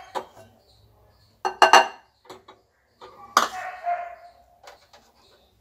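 A plastic measuring cup knocking against a glass mixing bowl while gram flour is tipped out of it: a few sharp knocks, the loudest about halfway through, after which the glass bowl rings briefly.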